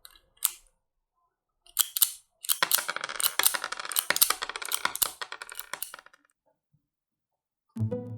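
Rapid, irregular clicking and rattling of small hard objects being handled: a single click, two more, then a dense run of clicks lasting a few seconds. Music with plucked strings starts near the end.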